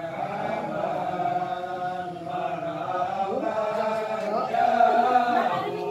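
Several voices chanting together in long, held lines.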